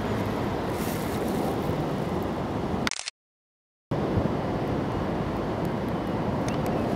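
Wind buffeting the camera microphone: a steady, dense rushing noise, heavy in the low end. About three seconds in it cuts to complete silence for just under a second, then resumes.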